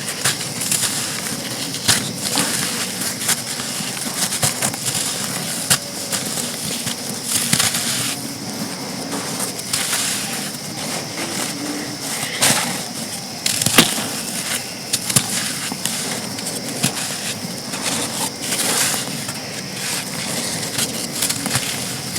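Dry pressed sand chunks being crushed and crumbled: a continuous run of crisp crunches and crackles, with a louder sharp snap a little past the middle.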